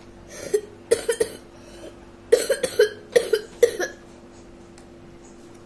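A person coughing in a fit, about ten short sharp coughs in several quick clusters, stopping about four seconds in.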